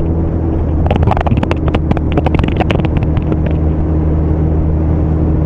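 Motorcycle engine running at a steady cruising speed, heard from the rider's own bike over wind noise. From about a second in, a flurry of sharp clicks or rattles goes on for a couple of seconds.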